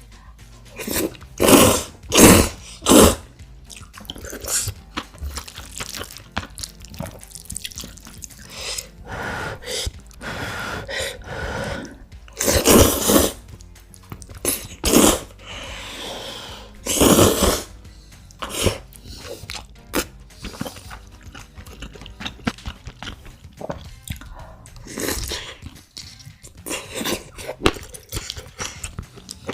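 Close-miked eating of noodles: a series of loud slurps and bites, the loudest a few near the start, about 13 s in and about 17 s in, with wet chewing and small mouth clicks in between.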